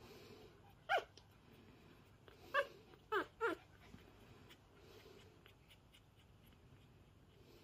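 Newborn puppies, about ten days old, squeaking and whimpering: four short high calls that drop in pitch, one about a second in and three more close together between two and a half and three and a half seconds in.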